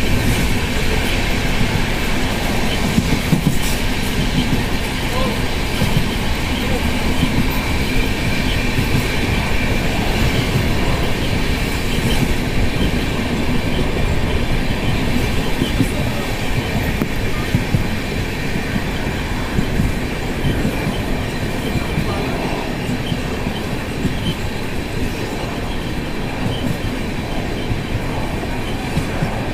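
Running noise of a passenger train heard from aboard an LHB coach: a steady rumble and rattle of wheels on the rails, with a faint steady high whine. It eases off somewhat in the second half as the train slows for an unscheduled halt.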